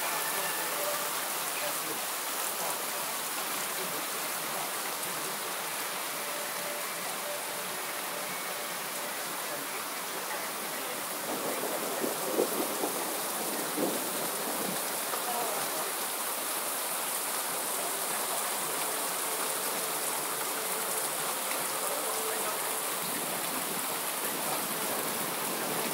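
Rain falling steadily, an even hiss throughout, with a few brief knocks about halfway through.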